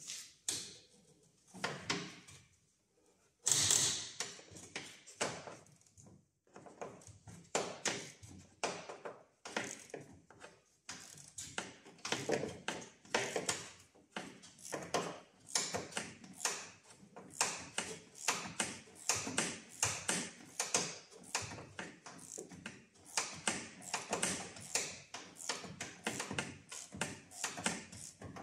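Hand ratchet clicking in repeated strokes, about two or three a second, as a headlight mounting bolt on a VW Passat B7 is worked loose, after a few separate knocks of tool and plastic in the first few seconds.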